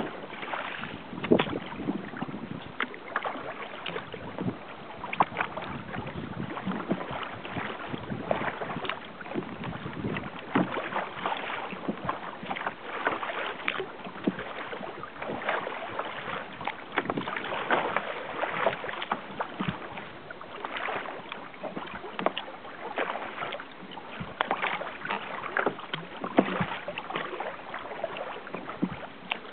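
Water splashing and lapping against the hull of a sail-assisted kayak under way through choppy water: a continuous rush broken by frequent short, irregular splashes.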